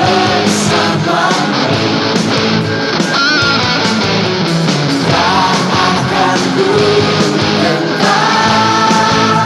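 Lead guitar playing a sustained, bending melody line over a full band backing track.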